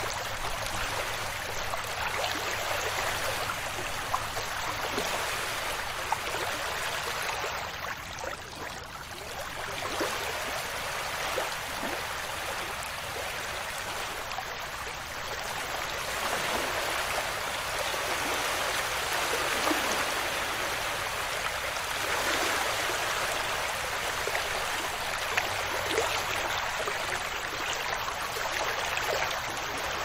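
Small waves washing on a beach: a steady hiss of moving water that swells and ebbs slowly every several seconds.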